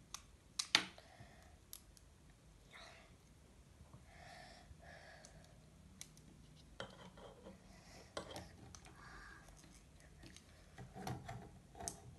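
Lego Technic plastic parts being handled and pressed together: scattered sharp clicks and small rattles at irregular times as pins and arm pieces are pushed into a Bionicle figure.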